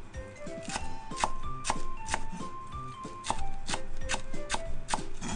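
Kitchen knife slicing green onions into thin rounds on a wooden cutting board: a steady run of sharp knocks, about two to three a second, over background music.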